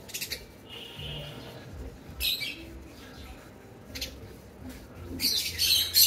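Rosy-faced lovebirds giving short, high, harsh chirps. Single calls come every second or two, then a louder run of calls near the end.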